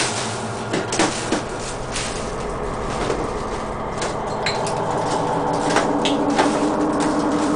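Small objects on a dresser top being picked up and moved about, giving scattered knocks and clicks over a steady drone.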